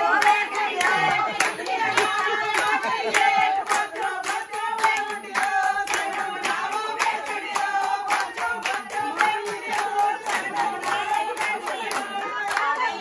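A group of women singing a song together while clapping in rhythm, about two claps a second.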